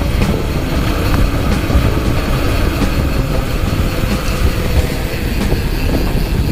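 Mountain bike rolling over a rough dirt trail: a loud, steady rumble of tyres and riding noise with scattered rattling clicks.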